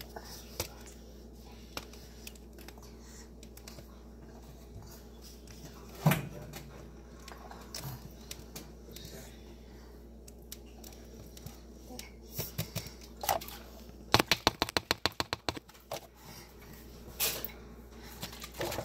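Household handling noises over a steady low hum: a sharp knock about six seconds in, a few scattered clicks, and near the end a quick run of about a dozen clicks, some eight a second.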